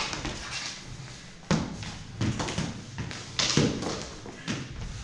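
Fencers' footsteps stamping and shuffling on a hard floor during a sword-and-dagger bout, heard as a handful of sudden thuds and taps.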